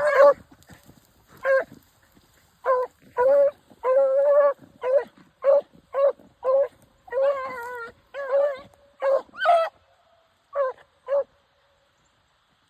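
Beagle hounds baying on a chase: about a dozen separate pitched calls, mostly short yelps with a few longer drawn-out bawls, stopping about eleven seconds in.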